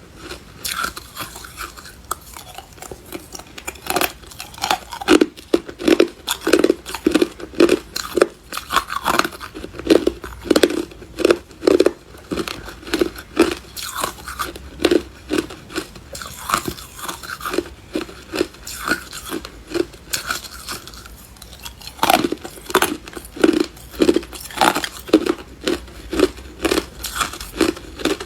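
Hard clear ice being bitten and chewed close to the microphone: loud, sharp crunches in quick runs of two or three a second, easing off briefly about three-quarters of the way through before picking up again.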